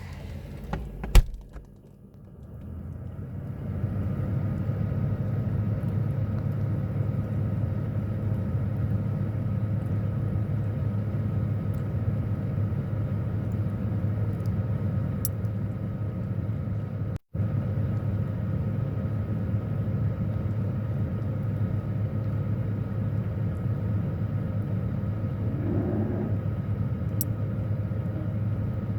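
A sharp click about a second in, then a refrigerator's steady low hum, heard from inside the closed fridge, builds up over the next two seconds and runs on.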